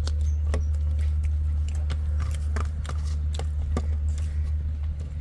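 Eating by hand: irregular wet clicks and smacks of chicken being bitten and chewed and of fingers working curried rice on steel plates, over a steady low rumble.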